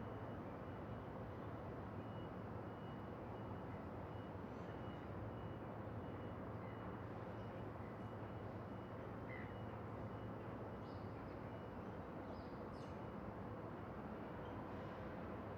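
Distant city traffic drone: a steady, deep rumble with a low hum. A faint high beep repeats evenly throughout, with a few faint high chirps over it.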